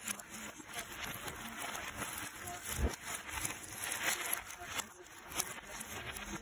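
Cardboard jigsaw puzzle pieces rustling and clicking as hands push and sift through loose piles of them on a tabletop. There is a thump a little under three seconds in.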